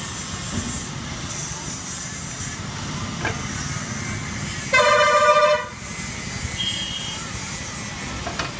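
Street traffic rumble with a vehicle horn honking once, loud, for about a second midway; hot oil hisses and sizzles in a frying pan underneath.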